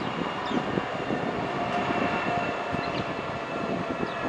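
Twin jet engines of a Boeing 757 freighter running at low power as it rolls along the runway: a steady whine over a rumbling hiss.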